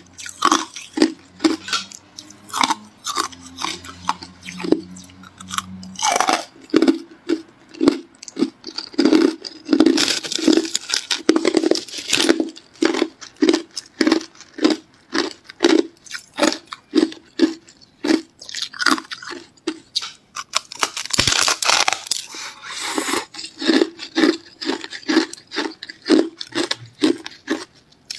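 Hard ice being crunched and chewed in the mouth: a steady run of loud, sharp crunches, about two to three a second, with a few longer grinding stretches.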